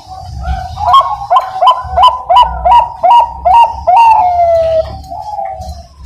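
Zebra dove of the Bangkok song line (perkutut bangkok) singing its song. A soft coo opens it; about a second in comes a run of about eight quick, loud notes, roughly three a second. Around four seconds in it ends in a long falling note and then a quieter trailing coo.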